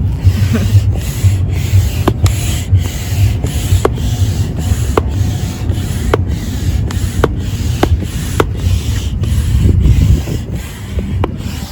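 Double-action hand air pump inflating an inflatable boat: air rushes in steady strokes about twice a second, pushing air on both the up and down stroke, with a light click roughly once a second.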